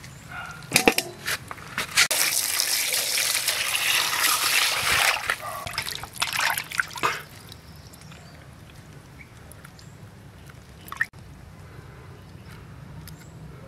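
Water splashing and sloshing in a stainless steel basin as a whole plucked chicken is washed by hand, with a few sharp knocks about a second in. The splashing is loud for about five seconds, then gives way to quieter drips and wet handling sounds.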